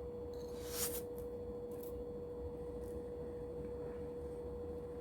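A steady, single-pitched background hum with a couple of faint soft clicks about one and two seconds in.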